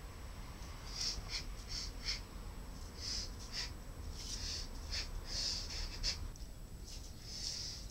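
Short, sharp hissing exhalations of breath, about a dozen at irregular intervals, from a karateka breathing out with each technique of the kata.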